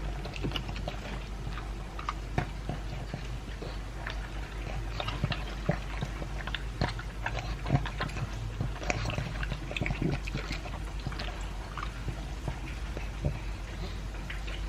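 Pug eating dry kibble mixed with chunks of beef: irregular crunching and chewing, a quick scatter of sharp clicks, over a steady low hum.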